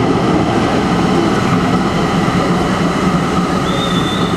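Tram running through an underground station, a loud steady rumble from its passing, with a brief high squeal near the end.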